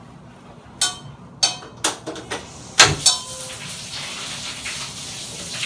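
Gas stove burner being lit: a series of sharp igniter clicks, then the gas catches just before three seconds in with the loudest pop, and the flame burns on with a steady hiss.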